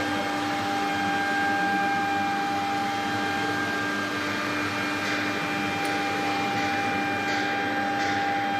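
Steady machine hum with several held whining tones from the powered-up desktop CNC engraving machine and its control gear standing idle. From about five seconds in, short hissing bursts come and go over it.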